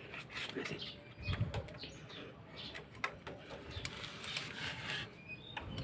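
Faint, scattered light clicks and taps of hand tools and metal engine parts being handled on a motorcycle engine under teardown, with a duller knock about a second and a half in.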